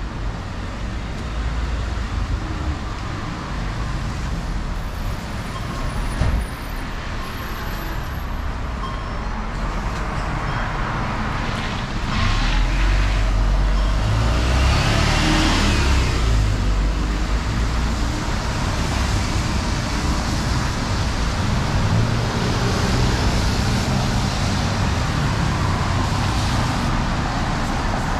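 Road traffic in the rain: vehicles go by on a wet street, the loudest passing about halfway through, over a steady hiss of rain.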